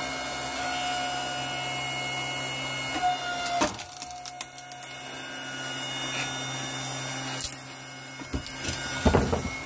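Firewood being handled, with a few sharp wooden knocks about three and a half seconds in, near the middle and near the end, over a steady mechanical hum.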